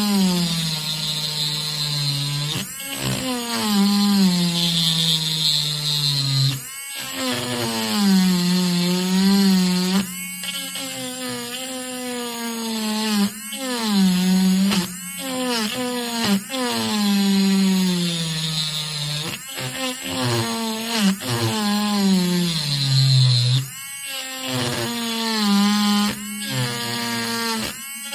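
Pen-style electric rotary tool grinding into cured epoxy resin. Its motor whine slides down in pitch and back up over and over, with a few short breaks.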